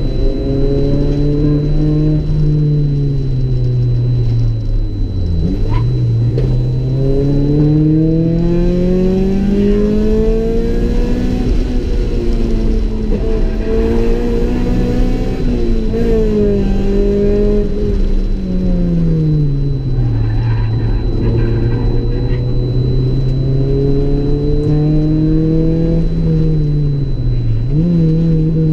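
Honda Civic EG's B18C 1.8-litre VTEC four-cylinder engine pulling hard on track, heard from inside the cabin. Its pitch rises and falls over several seconds at a time with the throttle, with a sudden drop about five seconds in and a quick dip and jump near the end.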